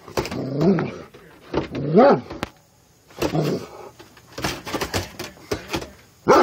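A dog whining in two short cries that rise and fall in pitch, followed by a scatter of light clicks and knocks.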